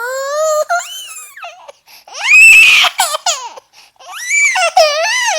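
Stock sound effect of a baby crying and screaming: loud wails that rise and fall in pitch, with a high shriek about two seconds in that is the loudest part, then more wailing near the end.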